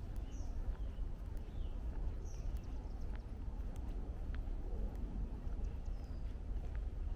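Small birds give several short, high chirps over a steady low rumble of distant highway traffic, with faint footsteps on the trail.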